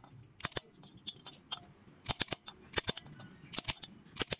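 Sharp metallic clicks and taps, often in pairs or small clusters at uneven intervals, as the camshaft is worked into its bearing in the aluminium cylinder head.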